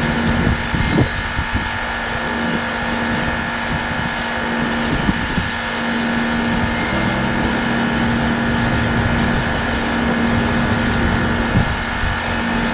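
Pressure washer running steadily, its high-pressure water jet blasting dirt off a concrete walkway.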